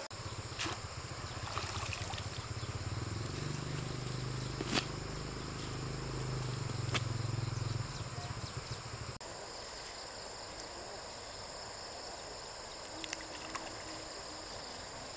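Insects calling steadily in two high, even tones. For the first nine seconds a low hum runs under them, then cuts off abruptly. A few sharp clicks are scattered through.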